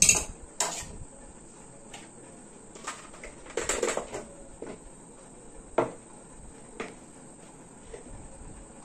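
Kitchen utensils and bowls clinking and knocking: scattered sharp taps, the loudest right at the start, with a short rattle of several knocks about four seconds in.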